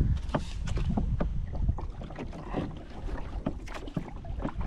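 Paddle knocking and clunking against a Hobie Outback kayak's hull in a run of irregular knocks as it is worked to push the kayak free of the mud it is stuck in, with wind rumbling on the microphone.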